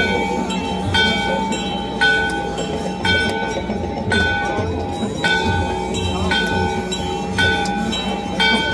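Bells struck about once a second, each strike ringing on, with the pitch alternating between strikes, over a steady drone and a low rumble.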